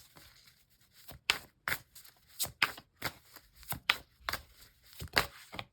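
Tarot cards being shuffled by hand: a series of short, crisp snaps and slaps, roughly two a second at an uneven pace.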